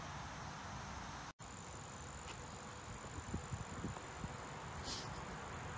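Insects keep up a steady high-pitched tone over faint outdoor background, starting just after a momentary dropout about a second and a half in. A few soft knocks and a brief rustle come near the end.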